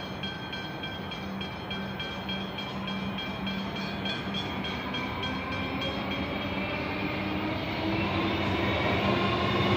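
Comeng electric suburban train approaching, its sound growing steadily louder, with a whine rising in pitch over the second half. Steady pulsing tones sound in the background early on.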